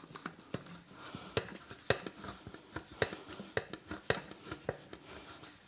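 Last screw being tightened by hand with a screwdriver into the plastic housing of a homemade blender: scattered sharp clicks and small knocks, roughly one every half second.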